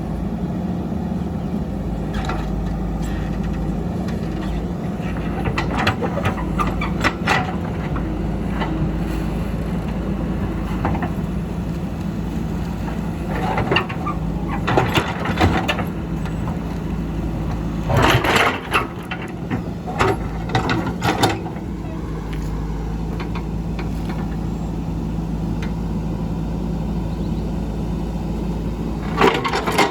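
Diesel engine of an earthmoving machine running steadily under load, with short clanks and scrapes several times, clustered around a quarter, half and two-thirds of the way through and again at the end.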